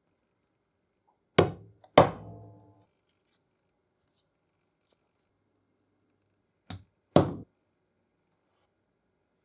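Small metal oiler parts knocked down onto a wooden workbench: two sharp knocks about a second and a half in, the second with a short metallic ring, then two more knocks about seven seconds in.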